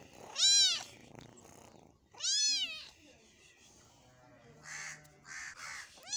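Kitten meowing while it tugs at raw meat: two high meows, each rising then falling in pitch, about half a second and two seconds in, and a third starting near the end. Several short rasping sounds come in the second half.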